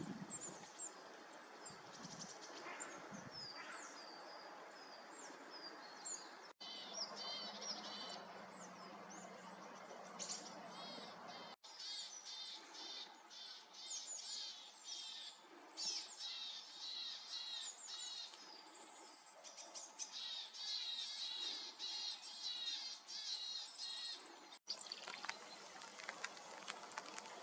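Small woodland birds, tits, giving short high chirping calls again and again over a soft steady background hiss. Near the end it switches to a steady hiss with many small ticks, light rain falling.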